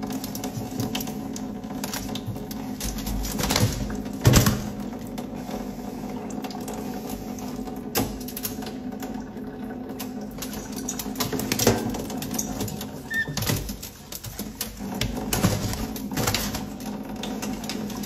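Tap water running into a stainless steel sink while white-bellied caiques bathe and flap in it, with many quick, irregular clicking taps throughout.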